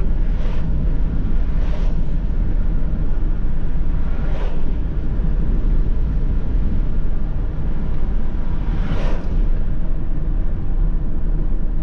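Steady engine and tyre rumble inside a Volkswagen Crafter van's cabin while driving, with a few brief swishes of oncoming vehicles going past.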